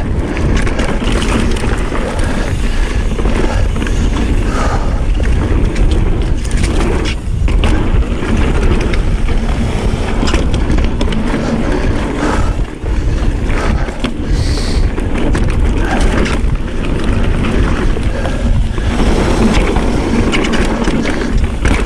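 Mountain bike riding fast down a packed-dirt trail: steady tyre and rolling noise with frequent knocks and rattles of the bike over bumps.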